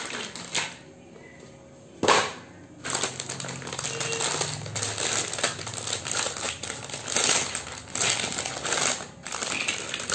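Clear plastic bag crinkling and rustling in the hands, with the hollow plastic sand molds inside clicking against each other. A sharp click comes about two seconds in, and the rustling is denser from about three seconds on.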